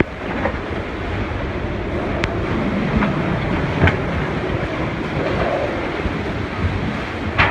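Typhoon-force wind blowing hard and steadily against the microphone, a continuous rumble with a few faint knocks.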